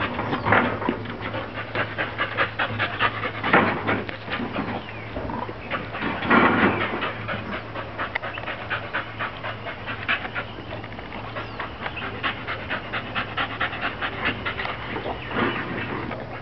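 A Staffy-type dog panting rapidly and evenly with its tongue out. A few brief, louder sounds stand out: near the start, around a quarter and a third of the way in, and near the end.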